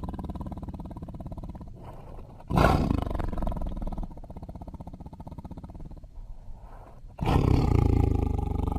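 Tiger vocalising: a quieter low growl, then a sudden loud roar about two and a half seconds in that dies down after a second or so. A quieter stretch follows, then another loud roar breaks out near the end.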